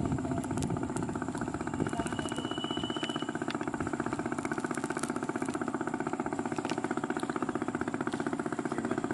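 A small engine running steadily at a constant speed, with a fast, even pulsing beat.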